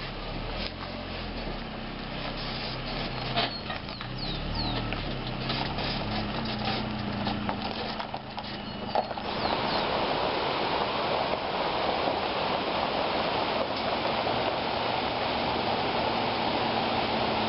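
An SUV towing a camper trailer rolls slowly past on a dirt road: a low steady engine hum with scattered crunches and clicks from the tyres, and a few short bird chirps. About nine seconds in the sound changes abruptly to the steady rushing of a stream at a wooden bridge, with the low engine hum still underneath.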